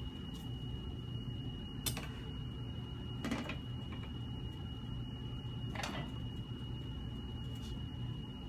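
A few light clicks and knocks of handling, three of them spaced a couple of seconds apart, over a steady low hum and a thin, steady high whine.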